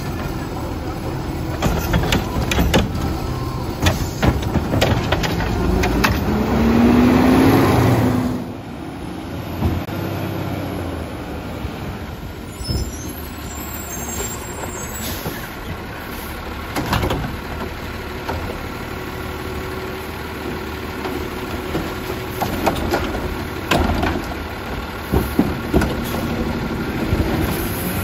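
Garbage truck diesel engine running and revving to drive the hydraulics as the arm lifts a cart, with a loud rising whine about six to eight seconds in. Later the truck runs steadily, with sharp knocks and bangs as the trash carts are tipped and dumped.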